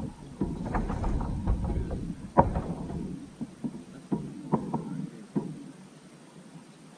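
Scattered knocks and clicks from a plastic fishing kayak and its gear, over a low rumble that fades out about three seconds in.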